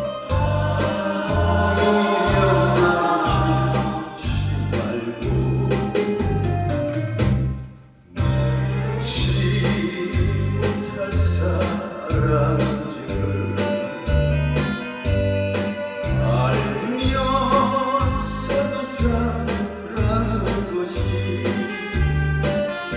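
A group of six singers singing a song together over a musical accompaniment with a steady bass beat. The music briefly drops out about eight seconds in, then picks up again.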